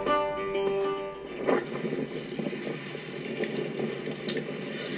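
Intro music with a held chord that ends about a second in, followed by rough, uneven outdoor noise of wind and choppy water on a boat.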